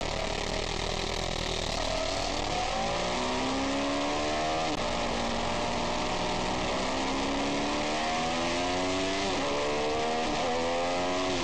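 Triumph Daytona sport bike engine accelerating hard, its pitch climbing in long sweeps and dropping sharply at each gear change, several times, over a steady rush of wind on the bike-mounted camera's microphone.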